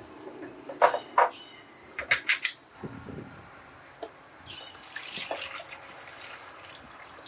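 Drip coffee maker being set up by hand: sharp clicks and knocks of its plastic lid and glass carafe, then a brief liquid pouring sound about two-thirds of the way through.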